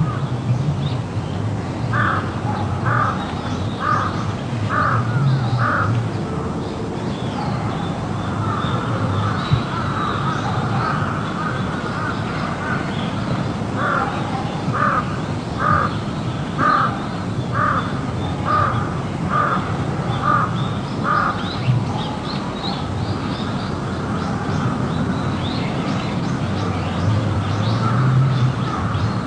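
A crow cawing in two runs of calls: five caws about a second apart early on, then, after a pause, eight caws a little faster, over a steady hiss.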